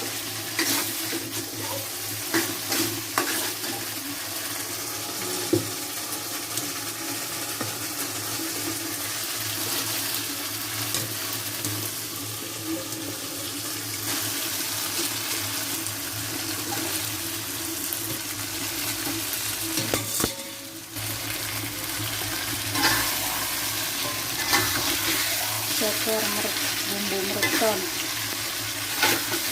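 Food sizzling as it fries in a pan while being stirred, with scattered clicks of the utensil against the pan. The sizzle breaks off briefly about two-thirds of the way through.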